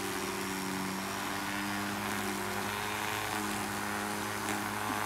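A steady low mechanical hum with several even tones, holding level throughout.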